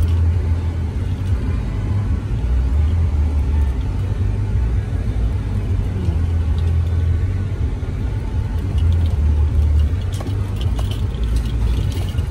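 Low, steady rumble of a vehicle driving slowly on a dirt road, heard from inside the cab: engine and tyre noise, with a few light clicks near the end.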